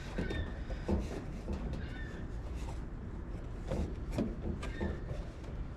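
Scattered clicks and knocks of hands working a plastic turn-signal light housing loose, with a few brief squeaks, over a steady low rumble.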